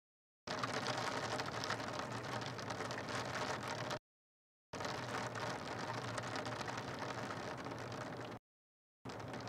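Steady rain hiss. The sound cuts out to dead silence three times, each time for under a second: at the start, about four seconds in, and about eight and a half seconds in.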